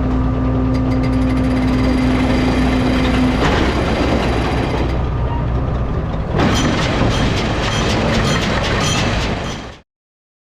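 Tractor engine running steadily with farm machinery clatter, a steady whine dropping out about three and a half seconds in and the sound growing rougher and brighter from about six and a half seconds; it cuts off abruptly near the end.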